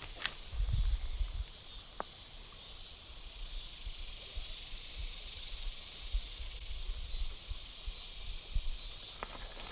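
Steady hiss of running creek water, with a few low bumps and thuds in the first second or so.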